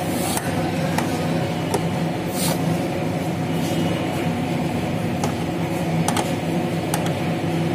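A steady low mechanical drone, like an idling engine, with scattered light clicks and knocks of engine-bay parts being handled and fitted.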